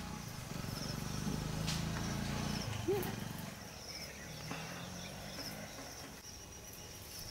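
Outdoor ambience: a faint, regularly repeating high chirping over a steady low hum, with a brief pitched sound about three seconds in.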